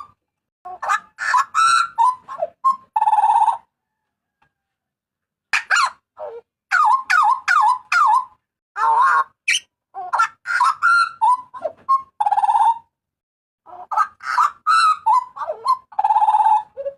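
Hooded butcherbird calling loudly in three bouts. Each bout is a quick run of clear whistled notes ending in a harsh, rasping note, with short pauses between bouts.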